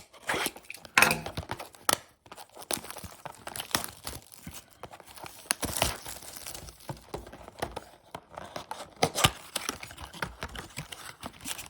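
A trading-card blaster box being torn open: its wrapping crinkling and ripping in irregular crackles, with a few sharper rips.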